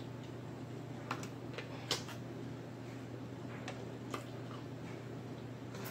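Scattered sharp clicks and small cracks of cooked blue crab shell being pulled apart and picked by hand, the loudest about two seconds in, over a steady low hum.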